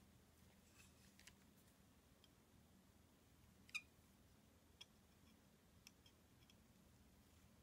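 Near silence with a few faint, scattered clicks and ticks, the loudest about four seconds in, from a digital caliper's sliding jaw and memory modules being handled.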